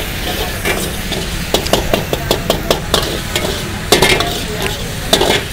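Metal ladle clanking and scraping against a steel wok in quick irregular strokes while vegetables and sauces sizzle steadily over high heat; the hardest strike comes about four seconds in.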